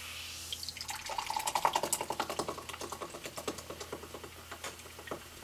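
Carbonated Monster energy drink pouring from a can into a glass: rapid glugging and fizzing that is busiest for the first couple of seconds, then thins out as the pour slows.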